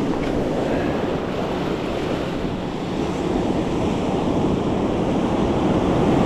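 Ocean surf breaking and washing up the beach, a steady rushing wash, with wind buffeting the microphone.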